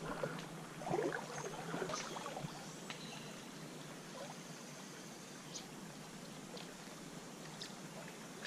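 Shallow creek water running over a riffle, a steady wash, with a few brief splashes in the first two seconds.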